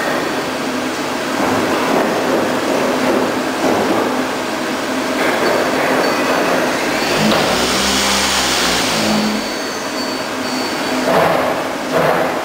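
Mazak Integrex 200SY CNC mill-turn centre running a program, with steady machine noise throughout. A deeper hum and a thin high whine rise for a couple of seconds past the middle, and a few short knocks come near the end.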